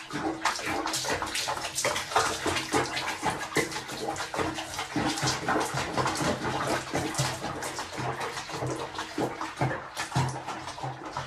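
Soapy water splashing and sloshing in a sink basin as a cat is bathed in it, with irregular short splashes throughout.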